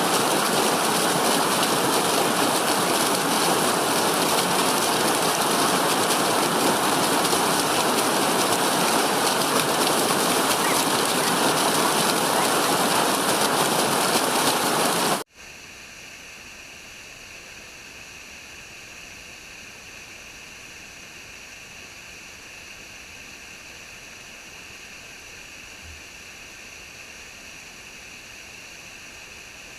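Rushing water, as of heavy rain or a fast stream, a loud, even hiss. About halfway through it cuts off abruptly and gives way to a much quieter, steady, thin hiss.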